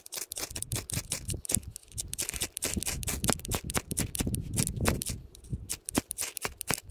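Fixed-blade knife shaving thin curls off a split block of firewood, a quick, irregular run of short scraping cuts, several a second. The shavings are tinder for lighting a fire.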